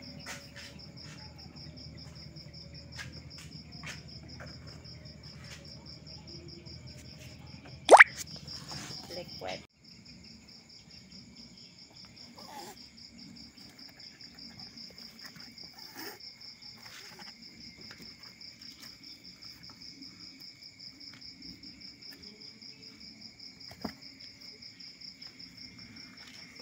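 A steady, pulsing chorus of insects chirping. About eight seconds in there is one brief, very loud rising swish, and a low hum underneath cuts off abruptly a couple of seconds later.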